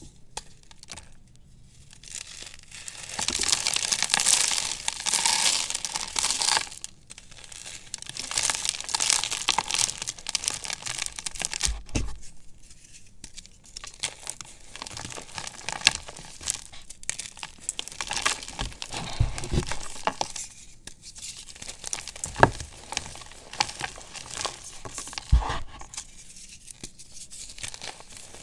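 Blocks of gym chalk crushed and crumbled between the hands, giving dry, powdery crunching and crackling in uneven waves. A few sharper knocks come in the second half as pieces break or hit the tub.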